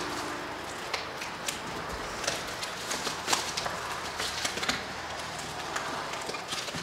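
Trading card packaging being handled, giving light rustling and scattered irregular clicks and taps.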